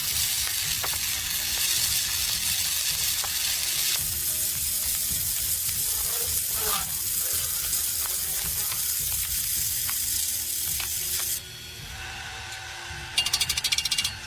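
MIG welding arc crackling steadily as a bead is run, stopping about eleven seconds in. A short burst of rapid crackle follows near the end.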